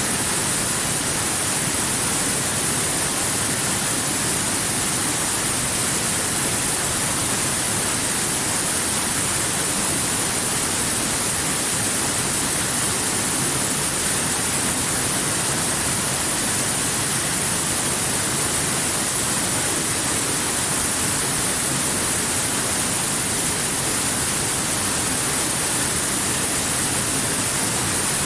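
Waterfall: a steady, unbroken rush of falling water, strong in the high hiss.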